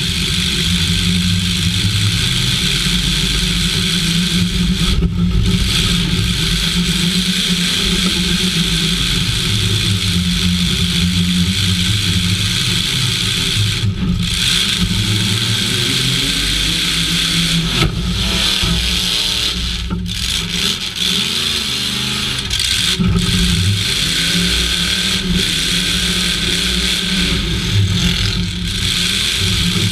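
Half-ton pickup demolition-derby truck's engine running hard, heard from inside the stripped cab, its pitch rising and falling as the driver revs it, most plainly a little past the middle.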